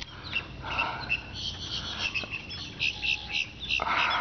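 Small marsh creatures chirping: a quick run of short, high chirps, densest in the middle, over a light steady background noise. A brief rushing noise comes near the end.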